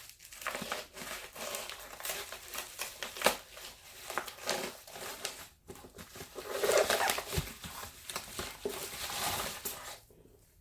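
Packaging crinkling and rustling in irregular bursts as a newly delivered book is unwrapped, stopping about ten seconds in.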